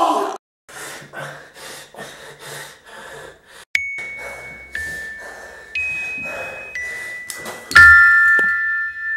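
Horror film score: a man's scream in the first half-second, then quick rhythmic noisy pulses, then a run of held high bell-like notes, each about a second long and stepping up and down in pitch. About eight seconds in comes a loud hit with a held chord of several high notes.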